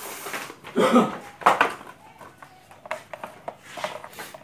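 Metal tools and parts clattering and knocking during hands-on work, with two louder clanks about one and one and a half seconds in and lighter taps after; no motor is running.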